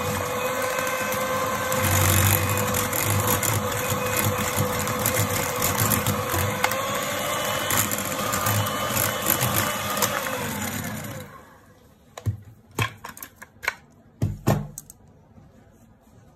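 Electric hand mixer with twin beaters running steadily through cake batter, then switched off about eleven seconds in, its pitch falling as the motor winds down. A few light knocks follow.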